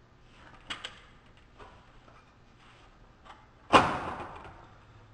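Aluminum radiator being worked down into its mounts: a couple of light clicks about a second in, then one sharp metallic clank with a short ring near the end.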